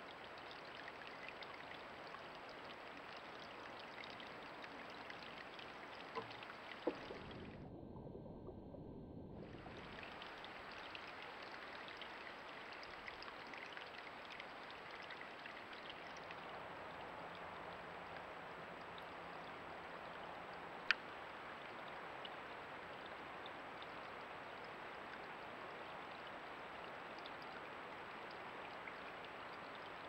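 Creek water running steadily, picked up by a trail camera's microphone, with a brief break about eight seconds in and a single sharp click about two-thirds of the way through.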